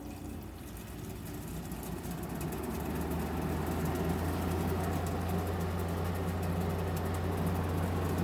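General Electric 5,050 BTU window air conditioner's fan starting on low, fan only with the compressor off, growing louder over the first three seconds and then running steadily with a low hum and water splashing inside the unit.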